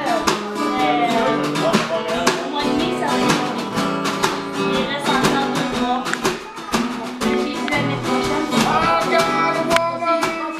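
Improvised blues jam: an acoustic guitar strummed and picked in a steady groove, with a snare drum struck with sticks in frequent sharp beats.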